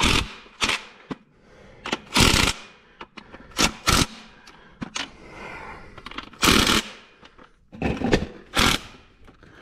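Impact wrench run in about seven short bursts, each a fraction of a second long, driving bolts home.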